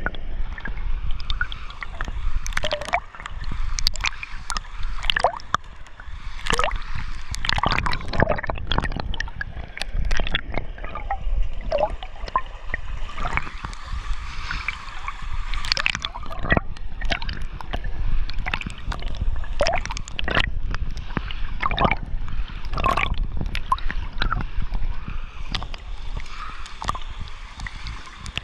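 Pool water gurgling and sloshing around a camera held at and just under the surface, with many irregular splashes and bubbly pops throughout.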